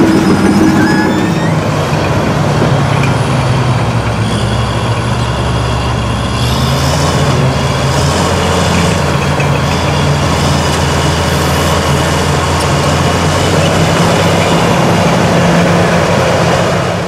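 Fiat-Hitachi crawler bulldozer's diesel engine running steadily under load as the dozer pushes soil with its blade, with a steady low drone and some high-pitched track rattle and squeak.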